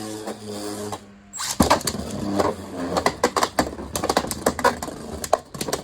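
Steady buzzing hum for about the first second, a short pause, then about 1.5 s in a sharp impact: Beyblade spinning tops launched into a plastic stadium. After that they whir and clash, with rapid, irregular plastic clacks as they strike each other and the stadium walls.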